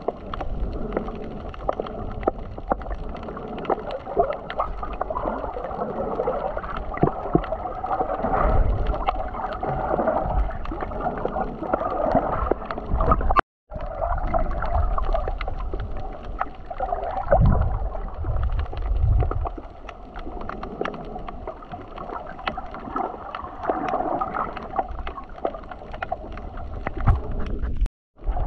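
Muffled water sloshing and gurgling as picked up by a camera in the sea, with low rumbling surges. The sound cuts out for a moment twice.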